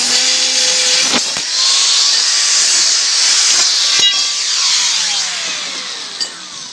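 Angle grinder with a thin cutting wheel cutting through steel square tube, a loud high-pitched grinding. About four seconds in it is switched off and its pitch falls steadily as the disc spins down.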